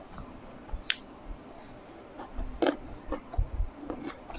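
Close-miked mouth sounds of a person biting and chewing a muscadine grape: soft wet smacks with a few short, sharp clicks.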